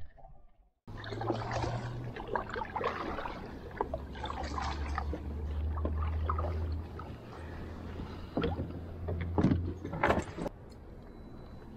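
Water splashing and lapping against a fishing kayak's hull as it moves across the lake, with a few sharp knocks near the end.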